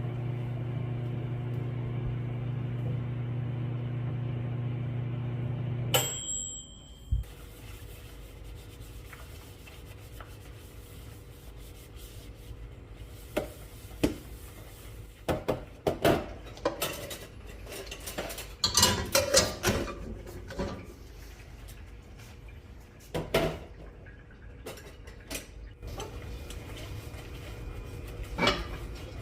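Microwave oven humming steadily while it runs, then stopping about six seconds in with a short high beep and a click as the door opens. This is followed by scattered clinks and clatters of dishes and cutlery.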